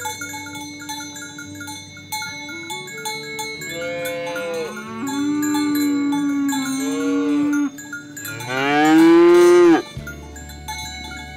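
Cattle mooing: short calls about four seconds in, then a longer held call, then the loudest, a long moo rising in pitch that cuts off suddenly. Light chiming mallet-percussion music plays underneath.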